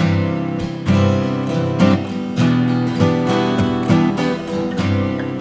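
Music without singing: an acoustic guitar strummed in a steady rhythm, an instrumental passage between sung verses of the song.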